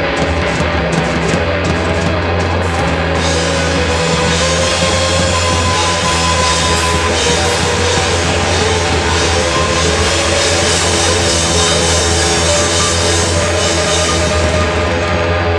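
Rock band playing live: electric guitar, bass and drum kit, loud and steady, with the cymbals coming in strongly about three seconds in.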